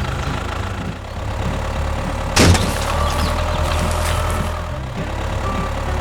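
Tractor engine idling steadily, with one sharp bang about two and a half seconds in.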